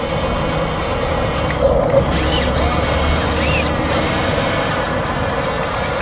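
Huina RC bulldozer's electric drive motors and gearboxes running steadily as the toy pushes through sandy earth, a continuous mechanical whirring and grinding.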